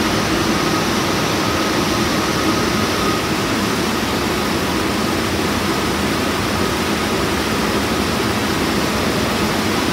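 Steady noise of New York City subway cars standing at the platform with their doors open, their air-conditioning and onboard equipment running, with a faint steady whine in the first few seconds.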